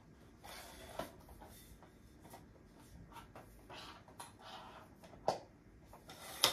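Rustling handling noise and a few sharp plastic clicks from a telescoping mop handle being twisted and moved while its lock is worked; the loudest click comes near the end.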